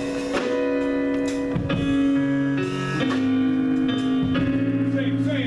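Instrumental gospel church music with held chords and plucked guitar notes; a bass line joins about two seconds in.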